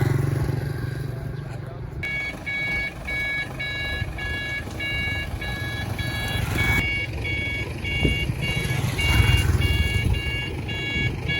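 Electronic beeper sounding a steady run of short, high beeps, about two a second, starting about two seconds in and stopping near the end.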